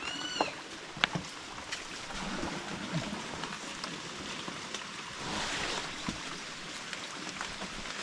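Steady rain falling on leaves and lake water, a hiss with scattered drips and ticks that swells for about a second midway. A brief high chirp sounds right at the start.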